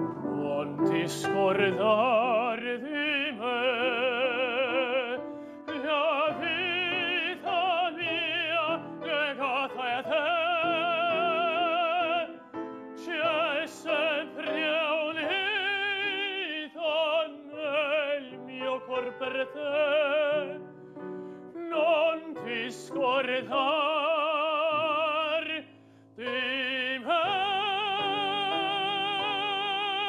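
Lyric tenor singing an operatic piece with a strong vibrato over piano accompaniment, in phrases broken by short breaths, closing on a long held note near the end.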